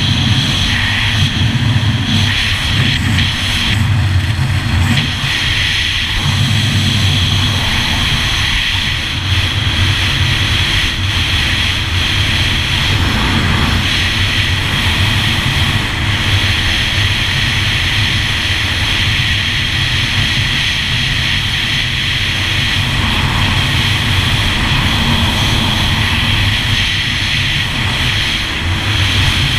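2001 Yamaha GP1200R personal watercraft's two-stroke three-cylinder engine running steadily while under way, heard from on board.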